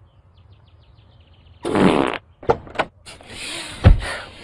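A loud, raspy fart sound about two seconds in, lasting about half a second, followed by a couple of short sharp noises and a loud knock near the end.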